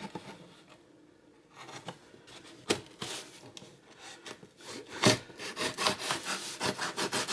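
Knife blade cutting through the seal of a sealed product box, scraping and rubbing against the packaging. It starts after a short quiet, with sharp clicks about three and five seconds in, and the scraping strokes come fast near the end.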